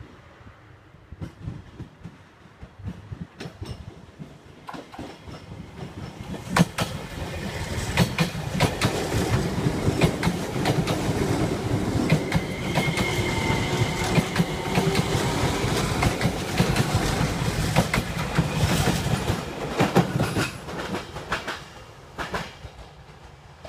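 JR Kyushu 303 series electric train pulling out and passing close by, its wheels clicking over the rail joints. It grows loud about six seconds in, stays loud for over ten seconds as the cars go past, and fades as it moves away near the end.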